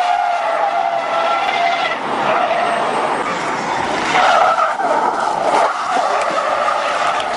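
Car tyres squealing as sedans slide sideways on asphalt. A long screech falls slowly in pitch over the first couple of seconds, and a second, higher screech comes around the middle.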